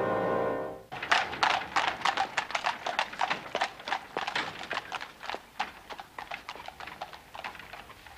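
Horse hooves clip-clopping, several strikes a second, starting as a music cue ends about a second in and slowly growing fainter.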